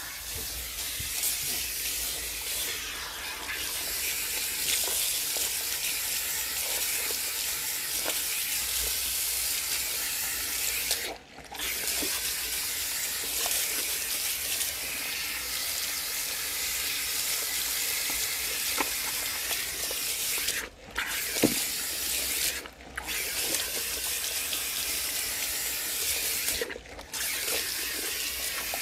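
Water running from a salon shampoo-bowl tap onto hair as it is rinsed, a steady rush of water that cuts off briefly four times.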